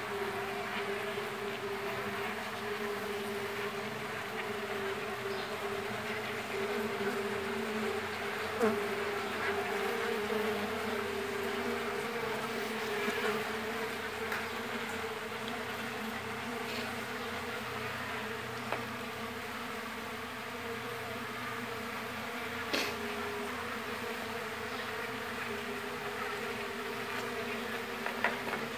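Mandaçaia stingless bees (Melipona quadrifasciata) buzzing steadily in their opened, disturbed hive, a wavering hum with two brief sharp clicks.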